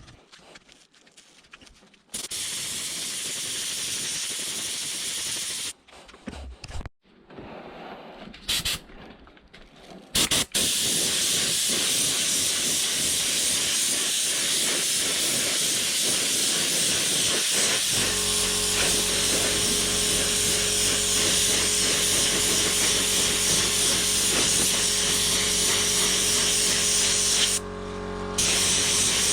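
Paint spray gun hissing as it lays on clear coat: a few short bursts at first, then a long continuous spray with a brief break near the end. About halfway through, a steady motor hum, the air compressor running, joins underneath.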